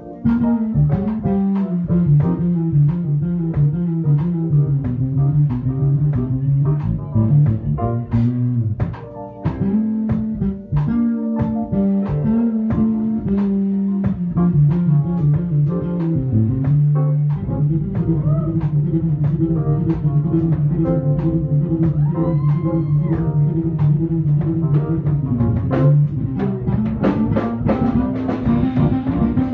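Live band playing, with a prominent electric bass line under electric guitar and a drum kit.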